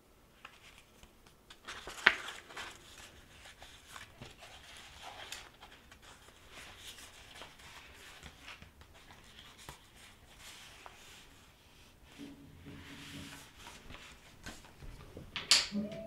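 Paper rustling as a printed booklet is handled and its pages moved, in scattered soft rustles with a sharp tick about two seconds in and a louder scrape near the end.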